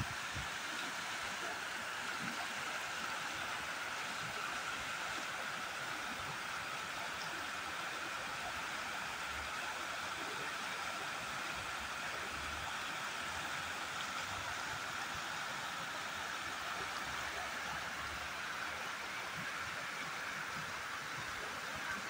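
Steady rush of flowing water from a small river, even and unbroken.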